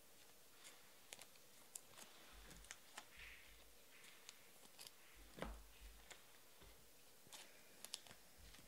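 Near silence with faint, scattered clicks and light rustles of trading cards being handled and sorted by hand, with a few soft thumps.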